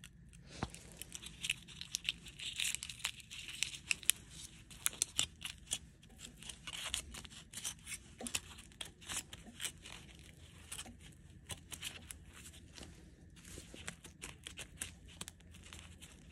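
Crumpled aluminium foil crinkling as gloved hands handle it, in a long run of irregular sharp crackles.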